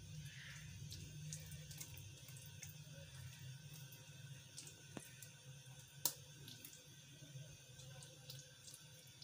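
Faint wet smearing of a spoon spreading thick besan batter over a naan on a plate, with a couple of light clicks about five and six seconds in, over a low steady hum.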